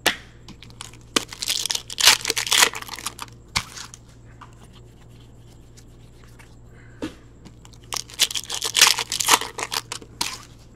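Wrappers of Upper Deck hockey card packs being torn open and crinkled by hand, in two bouts of quick tearing: one about a second in and another near the end, with a few single crackles between.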